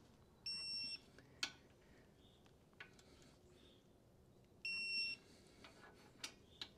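Two short, high electronic beeps about four seconds apart, each lasting about half a second, with a few faint clicks of tool work between them. The beeps are typical of a digital torque wrench signalling that the set torque of 22 Nm has been reached on a fork clamp bolt.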